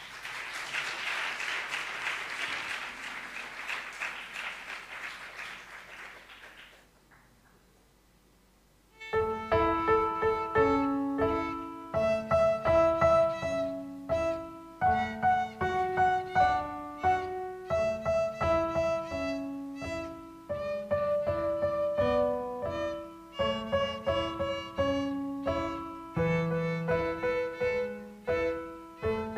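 Audience applause that fades out after about seven seconds; after a short pause, a violin and a piano start playing a piece together, the violin carrying the melody over the piano's struck notes.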